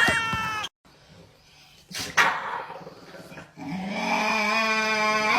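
A cat's long, drawn-out yowl on one steady pitch, starting a little after halfway and held to the end. It comes after a brief sharp knock or scrape.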